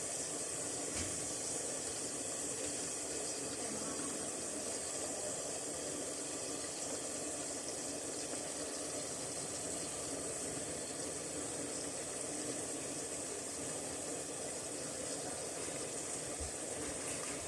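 Steaks frying in a covered pan, with a steady sizzling hiss.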